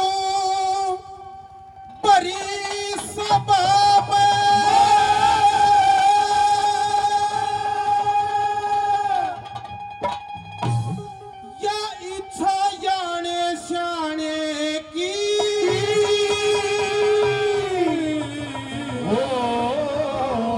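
Haryanvi folk music: long held, wavering notes that glide slowly up and down, with a short drop in level about a second in.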